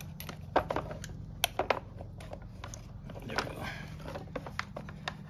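Irregular clicks and small metallic knocks, with a short scrape about three and a half seconds in, as a hand tool works at a stuck throttle cable fitting on an ATV carburetor.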